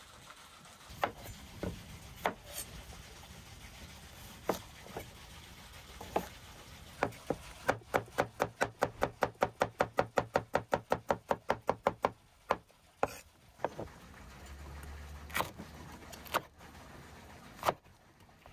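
Large kitchen knife chopping cucumber and green pepper on a wooden cutting board. Single knocks come at first, then a fast, even run of chops at about six a second in the middle, then single cuts again.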